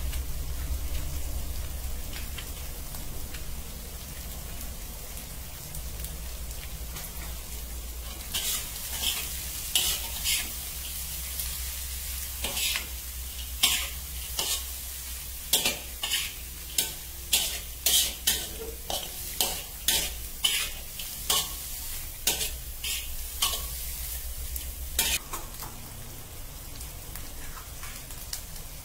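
Bean sprouts and egg sizzling in a steel wok while a metal spatula stirs and tosses them. From about a third of the way in, quick scraping strokes against the wok come about twice a second until near the end. A low hum underneath stops near the end.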